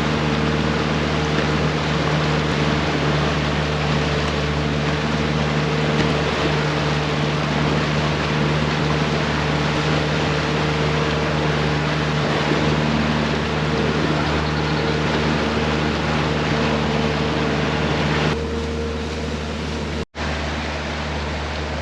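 Motorboat engine running steadily at trolling speed, a constant hum with wind and water hiss over it. The sound thins slightly near the end and cuts out for an instant just before the close.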